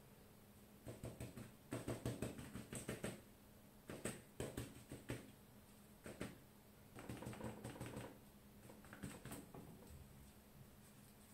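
Crumpled aluminium foil dabbed quickly against paper to stamp on paint: faint, rapid tapping in several short runs.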